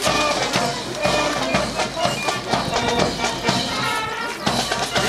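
Marching music with a steady drum beat and held band tones, played for a drill team's exit march.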